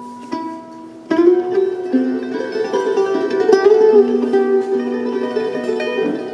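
Music on plucked string instruments, with a louder passage starting suddenly about a second in.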